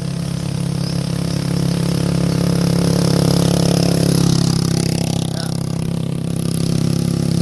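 Motorcycle engine running as it comes up and passes close by, loudest about three to four seconds in, its pitch dropping as it goes past.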